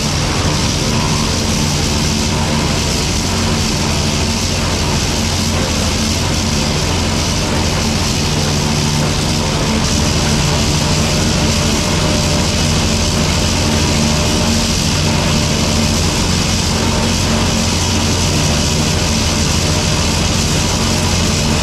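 Tractor engine pulling a New Holland pull-type forage harvester that is chopping standing corn for silage: a steady, loud engine drone under load with the harvester's running noise over it, unchanging throughout.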